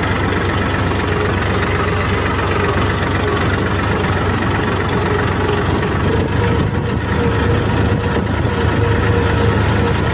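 New Holland tractor's diesel engine running steadily while the tractor is driven, heard from the driver's seat, with a thin steady whine above the engine note.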